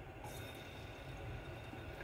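Hot cooking oil sizzling faintly around wooden chopsticks dipped into it, a soft steady hiss that starts just after they go in. The bubbling at the chopsticks is the sign that the oil is hot enough for frying.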